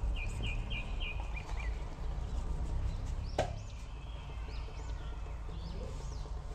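A small bird chirping, a quick run of about six short notes near the start and a few more calls later, over a low steady hum. A single sharp click about three and a half seconds in.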